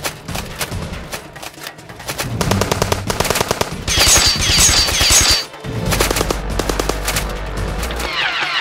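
Cartoon machine-gun fire sound effects: rapid volleys of shots, with bright metallic hits ringing off armour about four seconds in and a falling whine near the end.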